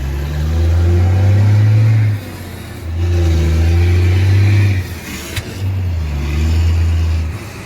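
Loaded truck's straight-pipe exhaust pulling under throttle in three surges of about two seconds each, dropping back briefly between them.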